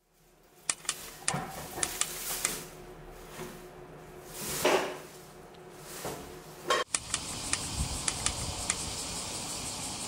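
Scattered light clinks of dishes and cutlery over a faint steady background hiss, with a brief louder rustle about halfway.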